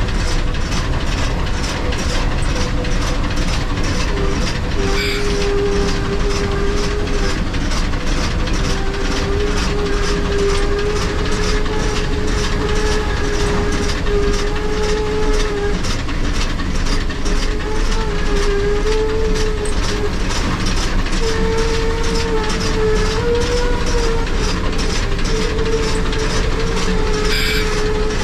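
Steam locomotive under way, heard from the cab: a steady, even beat of about two a second over a constant rumble, with a tone running throughout that wavers slightly in pitch.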